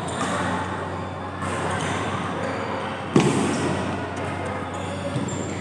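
Badminton rackets striking the shuttlecock during a doubles rally: a few sharp cracks, the loudest about three seconds in. Underneath runs the steady echoing murmur of an indoor sports hall.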